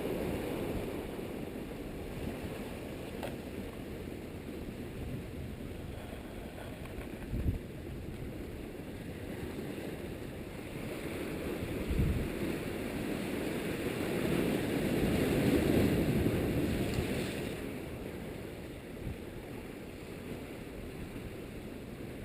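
Strong wind buffeting the microphone over a steady rush of surf, with a couple of low thumps from gusts; the rush swells loudest a little past the middle, then eases.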